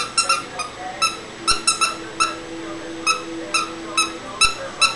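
Basset Hound chewing a Loofa Dog plush toy, squeezing its squeaker over and over: a quick irregular series of short, sharp squeaks, sometimes two or three in fast succession.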